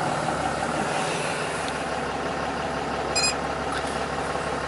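Dodge Ram 2500's 6.7-liter Cummins inline-six turbodiesel idling steadily, heard from inside the cab, just restarted after the tuner download. A brief high chirp sounds about three seconds in.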